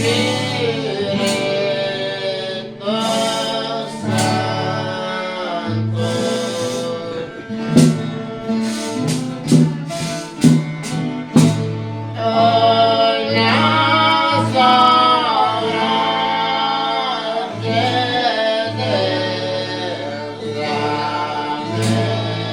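Folia singers voicing a devotional folk chant together, holding long sliding notes over a guitar accompaniment with a steady low bass line. A quick run of sharp knocks sounds between about eight and twelve seconds in.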